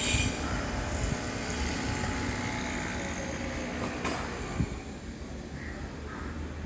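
Steady low mechanical rumble of running machinery, with one sharp knock about four and a half seconds in.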